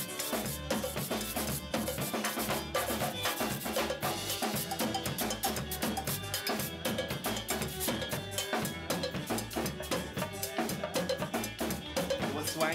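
Cayman kitchen band music: an electric violin and an acoustic guitar play over a busy rhythm from a metal kitchen grater scraped as percussion, congas and a cowbell struck with a stick.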